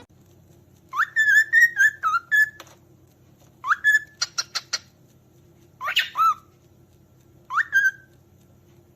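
Cockatiel whistling contact calls: four short whistled phrases, each opening with a quick rising sweep, the first one longer and warbling. A quick run of about five sharp clicks comes in the middle.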